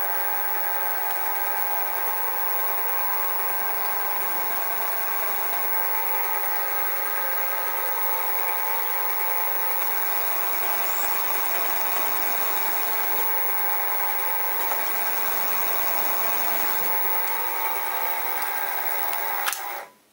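Sieg SX2P mini mill running steadily with a centre drill in the chuck, centre drilling a main bearing hole in the engine soleplate, a constant motor and spindle whine. The mill is switched off near the end and the sound stops abruptly.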